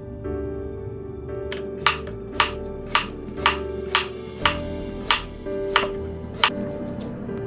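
Knife chopping on a cutting board, single strokes about two a second, starting about two seconds in, over soft background music.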